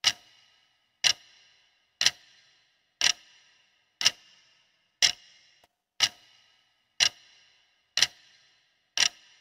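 Countdown timer sound effect: a clock tick once a second, ten ticks in a row, each with a short ringing tail.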